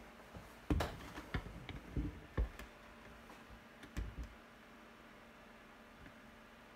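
A handful of irregular clicks and knocks over the first four seconds, over the steady faint hum of the Intel D5400XS Skulltrail workstation's fans running during its first boot.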